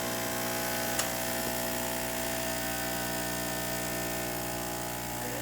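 Profitec espresso machine's pump running with a steady buzzing hum as it pulls a test shot, with a faint click about a second in.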